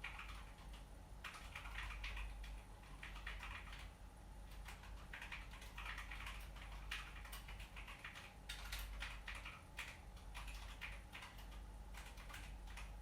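Typing on a Zet Blade mechanical keyboard with Kailh Black optical switches: rapid runs of key clacks with brief lulls.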